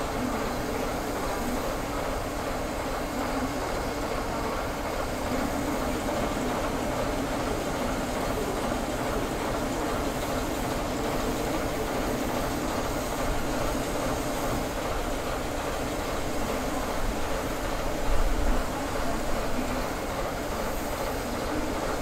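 Diesel locomotive engine running steadily, with one brief low thud about eighteen seconds in.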